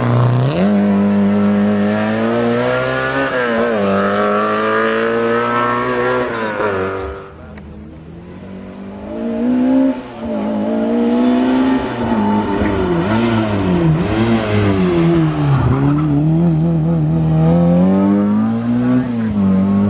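Peugeot 205 rally car's four-cylinder engine at full throttle, the pitch climbing through the gears and dropping on each shift and lift. About a third of the way in the sound falls away for a couple of seconds, then the engine picks up again with quick rises and falls in revs.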